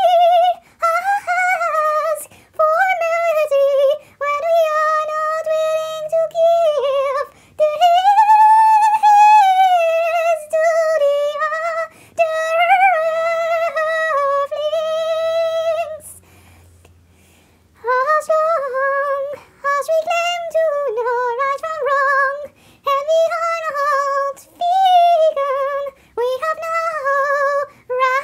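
A high female voice singing alone, with no instruments, in long wavering phrases with no clear words; it stops for about two seconds a little past halfway, then goes on.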